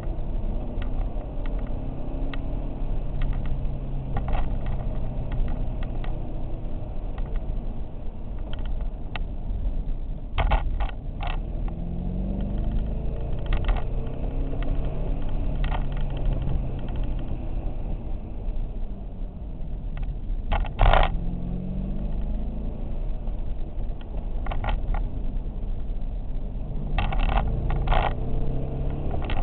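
Ford Mustang Bullitt's 4.6-litre V8, heard from inside the cabin while it is driven hard on an autocross course, its pitch rising and falling as it accelerates and lifts. A few sharp knocks and rattles come through, the loudest about two-thirds of the way in.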